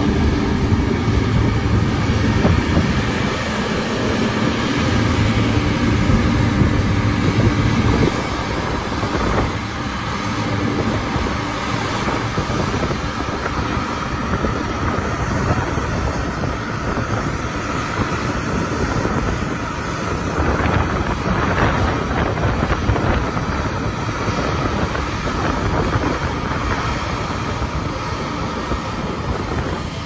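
New Holland CR10.90 combine's 15.9-litre diesel engine running under load while harvesting wheat, a steady drone mixed with the noise of its threshing machinery. For the first eight seconds or so a clear engine hum sits on top, then the sound becomes a broader, even rumble.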